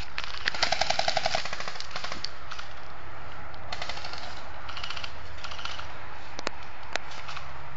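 Airsoft guns firing: a rapid burst of about ten shots in a second near the start, then scattered short bursts and two single shots near the end.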